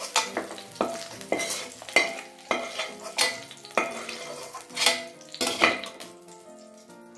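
Metal ladle scraping and clinking against a stainless steel wok as fried shallots, garlic, galangal and chilies are scooped out of shallow hot oil, which sizzles faintly. There are about a dozen sharp scrapes, roughly one every half second to second, and they stop about six seconds in.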